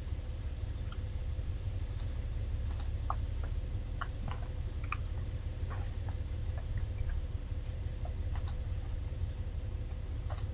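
Irregular clicks and taps of a computer mouse and keyboard, over a low steady hum.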